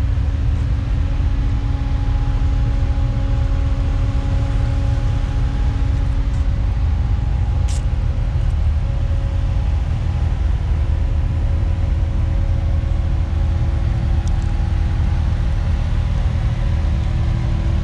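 A car engine running steadily with a low rumble, its pitch shifting slightly about halfway through. One sharp click about eight seconds in.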